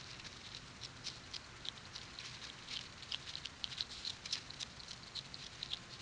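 Striped skunk crunching snow close to the microphone as it noses at and eats it: a quick, irregular run of small crisp crunches over a faint steady hiss.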